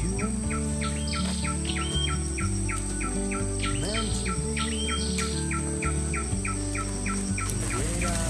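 Instrumental background music with a steady bass line and a quick even tick about four times a second, with short high chirps over it now and then.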